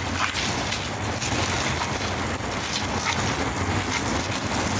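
Garden hose spray nozzle on its jet setting spraying water onto the plastic parts of an electric fan: a steady hiss of spray.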